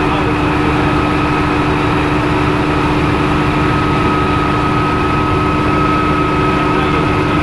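Bell OH-13 Sioux helicopter's piston engine and rotor heard from inside the cockpit in flight: a steady, loud drone with a fixed whine over a fast low throb.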